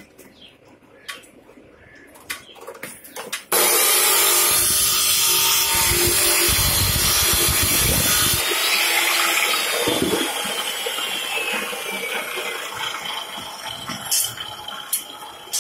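Abrasive cut-off saw starting suddenly about three and a half seconds in and grinding through a steel bar, then winding down with a falling whine after about eight seconds. Before it, light clicks and knocks of the bar being set in the saw's vise; near the end, a few clinks of steel bars being handled.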